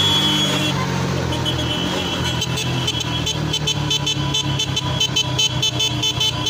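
Diesel tractor engines and a motorcycle engine running in a slow convoy, with a horn tooting in a rapid repeated pattern from a couple of seconds in.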